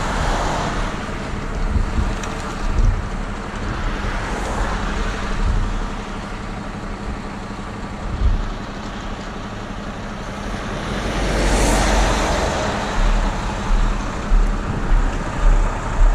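Road traffic on an expressway, a steady rushing noise with a low rumble. One vehicle passes, swelling and fading about eleven to twelve seconds in. Regular low thumps come near the end.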